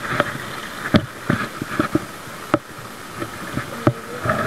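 Sharp knocks and clicks from handling a spinning rod and reel, the three loudest about a second and a half apart, over the steady rush of a flowing creek.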